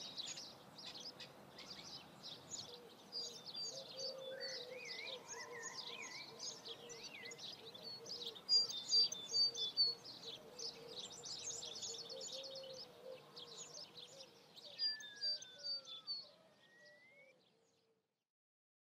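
A chorus of many small birds chirping and trilling, with louder runs of quick repeated notes about halfway through and again near the end. It fades out just before the end.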